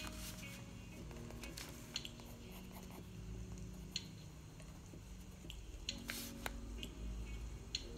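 2B graphite pencil scratching on sketchbook paper in short strokes as lines are gone over to darken them, with small sharp ticks as the lead touches down and one longer scratch about six seconds in.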